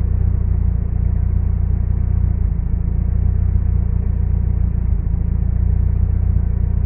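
Toyota 3S-GTE turbocharged inline-four idling steadily with a low rumble, just after its first start on a base MegaSquirt 3 calibration.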